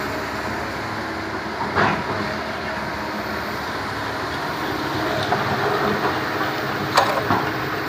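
Kobelco SK200 hydraulic excavator running steadily while demolishing a concrete wall, with a sharp knock about two seconds in and a louder one near the end as the bucket strikes concrete.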